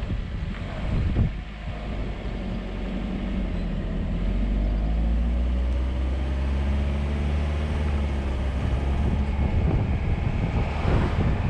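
Car engine and road noise heard through a camera mounted on the outside of the moving car; the engine note rises as the car accelerates around the middle, then eases off. Wind buffets the microphone near the end.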